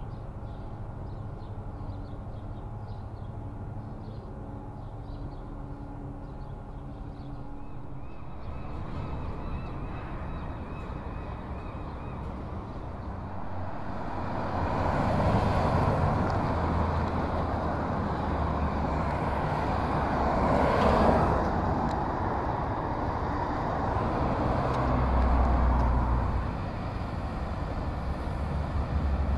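Road traffic on a city street: a low steady hum at first, then cars approaching and passing from about halfway, the loudest passing about two-thirds of the way in, with another swell near the end.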